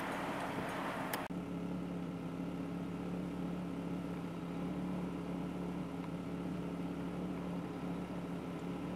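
Steady low hum of an idling vehicle, with a rushing wind noise over it that cuts off suddenly about a second in, leaving the hum on its own.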